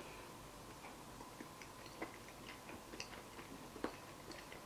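Faint, irregular small mouth clicks of someone chewing a spoonful of soft egg and potato curry with rice.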